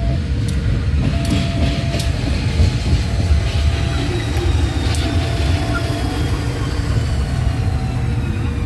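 CC203 diesel-electric locomotive running with a steady low engine rumble, a thin whine slowly falling in pitch, and a few sharp metallic knocks.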